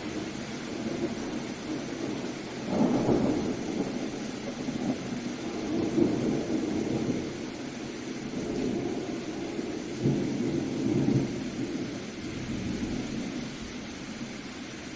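Steady rain with rolling thunder, the low rumble swelling about three times: around three seconds in, around six seconds, and again around ten to eleven seconds.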